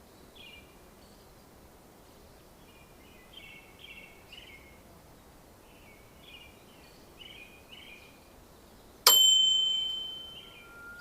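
Songbirds singing short chirping phrases again and again over light outdoor background noise. About nine seconds in, a single loud, sharp metallic click rings out and fades over about a second and a half.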